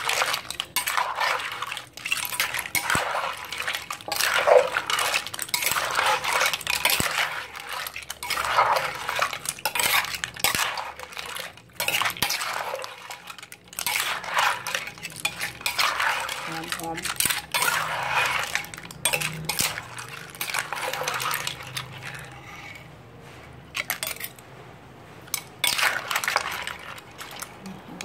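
Metal spoon scraping and clinking against a clay mortar as a seafood salad with cockles in their shells is tossed and mixed. The strokes come in quick runs and thin out near the end.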